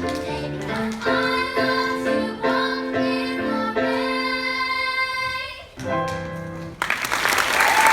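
Children singing a song over musical accompaniment, the held final note ending about six seconds in, a short closing chord, then applause breaking out near the end.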